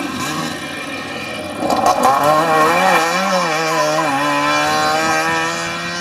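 Trabant 601 rally car's two-stroke twin engine running hard at high revs. Its note grows loud about two seconds in and wavers up and down, then holds and slowly climbs, over the hiss of tyres on gravel.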